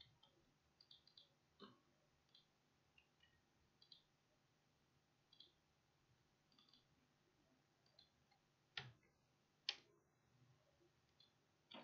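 Faint computer mouse clicks and keyboard taps, scattered and irregular, with two louder clicks about a second apart near the end.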